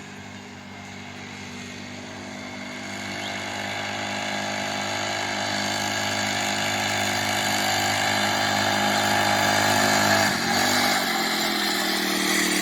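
Small 40cc four-stroke engine of a HOTSHOT TFR mini bike running at a steady speed and growing steadily louder, with a brief dip and shift in pitch about ten seconds in.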